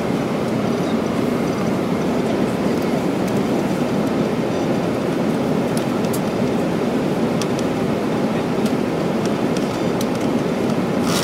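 Jet airliner cabin noise in flight: the steady, even rush of airflow and engines heard from a passenger seat.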